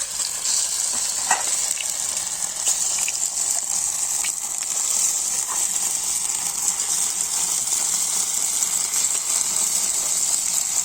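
Egg frying in hot oil in a pan: a steady sizzle, with a few light taps from a utensil.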